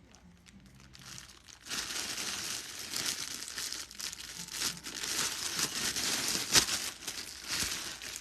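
Packaging crinkling and rustling as a garment is handled, starting about a second and a half in and carrying on steadily, with one sharper, louder crackle near the end.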